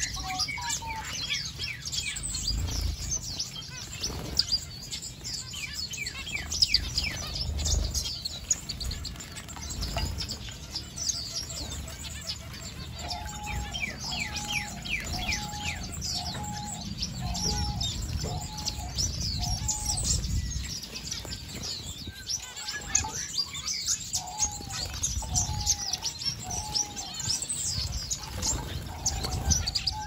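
A mixed flock of aviary finches chirping and twittering constantly, with wing flutters from birds bathing in a shallow water basin. A lower note repeats about twice a second in two runs, one about halfway through and one a few seconds later.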